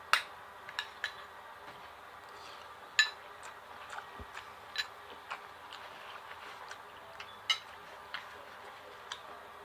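Eating at the table: scattered short clicks and taps of cutlery against a plate, mixed with chewing, with the loudest clicks about three seconds in and again past seven seconds.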